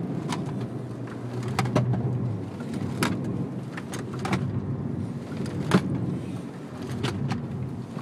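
BMW car engine running from inside the cabin as the car is driven hard through a cone slalom, its hum strongest in the first couple of seconds and then easing. A series of sharp knocks and clicks sounds over it throughout.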